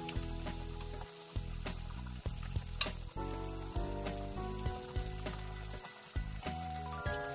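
Burdock root strips sizzling in oil and liquid in a frying pan, stirred with wooden chopsticks that click against the pan now and then.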